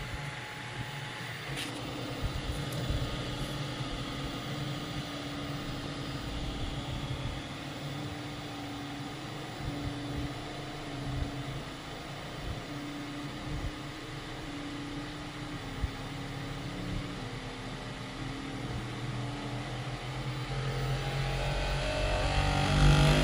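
Bambu Lab P1S 3D printer running, its stepper motors humming in short steady tones that change pitch every second or so as the head moves, with occasional light clicks. A louder, rising sound builds over the last few seconds. The printer has started making terrible sounds, which the owner suspects is a rattle on its right side.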